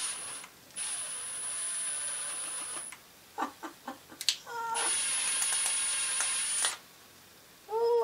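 Milwaukee M12 Fuel cordless driver run in three bursts, a very short one and then two of about two seconds each, with a high whine, its bit working on a small turn-signal part held in the hand. Between the second and third bursts come a few light clicks and a short squeak.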